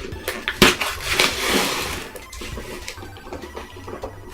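A mailer package being torn open by hand without scissors: a sharp crack about half a second in, then about a second of tearing and crinkling of the packaging, with chiptune background music underneath.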